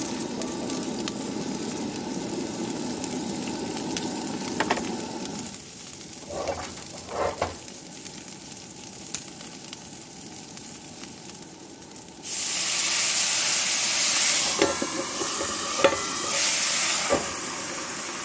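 Cauliflower florets sizzling in a hot, oiled cast-iron skillet on a camp stove, with a few short clunks from the pan. About twelve seconds in, a much louder, steady hiss of steam starts suddenly as the pan is covered to steam the cauliflower.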